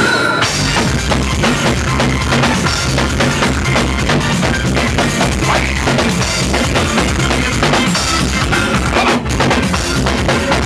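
Loud soca music with a driving drum-kit beat and heavy bass.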